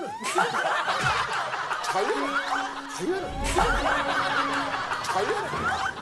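A group of men laughing together, many voices overlapping.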